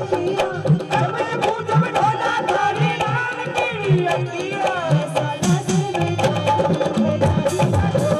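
Live Haryanvi folk music: dholak drums beating a steady rhythm under a melody line that bends in pitch.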